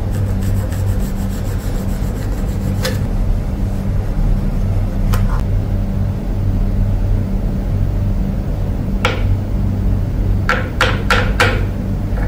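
Steady hand rubbing or scraping of a tool against the workpiece, with a few sharp taps: one each at about 3, 5 and 9 seconds, then four in quick succession near the end.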